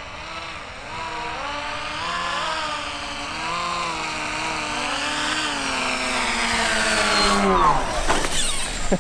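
Twin battery-powered electric motors and propellers of an RC plane buzzing in flight, their pitch wavering up and down as the motor speeds are varied to steer. Near the end the pitch falls away as the motors are throttled down for landing.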